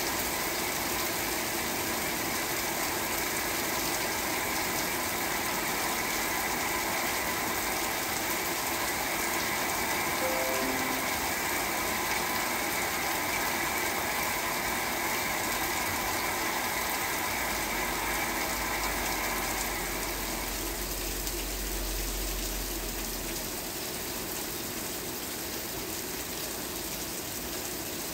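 Steady rain hiss mixed with a steady mechanical whir of several held tones. The whir stops about two-thirds of the way through, and a low rumble comes and goes shortly before it stops.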